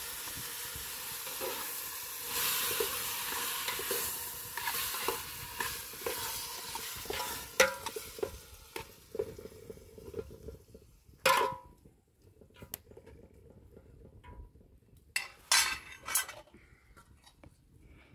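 Chopped tomatoes sizzling in a metal pot over a wood fire while a metal spoon stirs them, with regular small scrapes and clinks against the pot. The sizzling dies down about halfway through, and a few sharp metal clinks follow.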